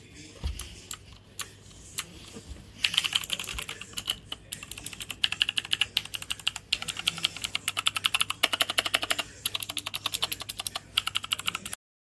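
Keys of an RK61 60% mechanical keyboard being typed on: a few scattered clicks at first, then from about three seconds in fast, continuous clacking with brief pauses. It cuts off suddenly near the end.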